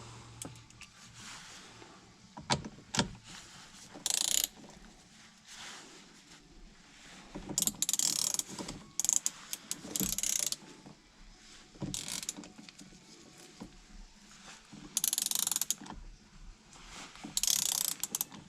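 Hand ratchet clicking in short runs, a few separate clicks, then repeated bursts of rapid ratcheting. It is running the steering wheel bolt down onto the steering column before final torquing.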